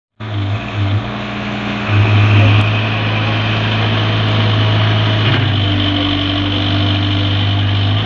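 Case backhoe loader's diesel engine running as it works the backhoe arm, a steady low hum that gets louder about two seconds in and shifts up in pitch about five seconds in.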